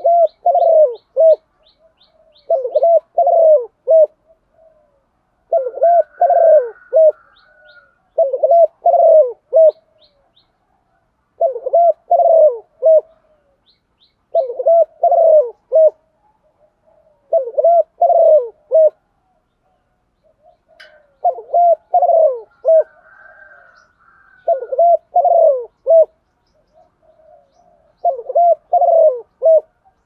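Female spotted dove cooing: a phrase of three or four low, falling coos repeated about every three seconds, the call used to rouse caged male doves. Faint high chirps now and then.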